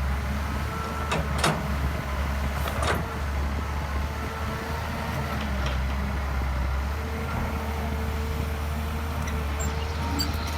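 Hydraulic excavator's diesel engine running steadily with an on-off hydraulic whine. Three sharp knocks come in the first three seconds.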